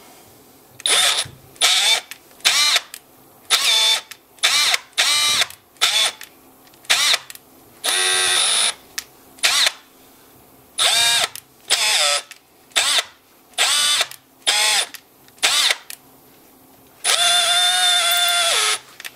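Electric drill run in a string of short trigger bursts, each spinning up and stopping, then held for one longer run of about two seconds near the end. It is drilling out a stripped bolt thread in a cylinder head to the size for a Helicoil insert.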